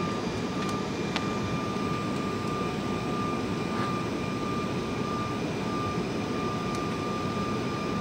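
A steady, loud mechanical drone, a dense rumble with a thin steady high whine over it that never lets up.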